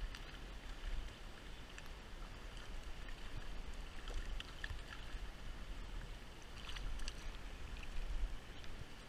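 Shallow stream running over stones, with a few light splashes from a hooked fish thrashing at the surface about halfway through and again near the end.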